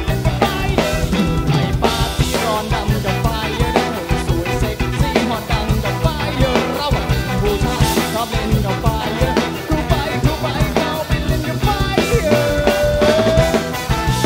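Live band playing an upbeat rock number, the drum kit played hard and prominent in the mix. A long held note sounds over the band near the end.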